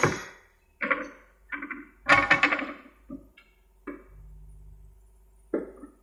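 Sawn wooden planks knocked and clattered into place on a wooden pallet frame: a run of separate sharp wooden knocks, with a rapid cluster about two seconds in and a last knock near the end.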